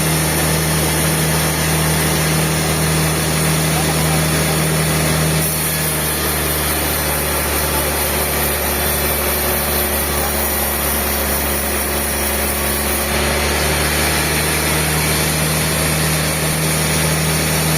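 A machine's engine running steadily with a low drone. Its tone shifts slightly about five seconds in and again about eight seconds later.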